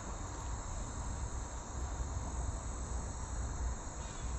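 Steady, unbroken high insect chirring, with a low steady rumble underneath.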